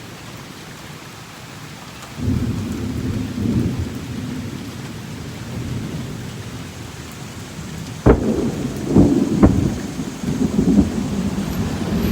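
Thunderstorm with steady rain and thunder: a low rumble rolls in about two seconds in, then a sharp clap about eight seconds in, followed by a couple more cracks and continued rumbling.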